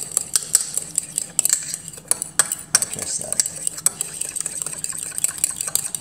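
Metal fork stirring a thin porridge of bird hand-feeding formula in a ceramic bowl, the tines clicking quickly and unevenly against the bowl's sides and bottom.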